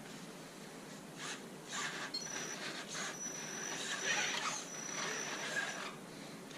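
Electric motor and gear drivetrain of an Axial Wraith RC rock crawler running in a few short bursts, then for a few seconds with a thin high whine.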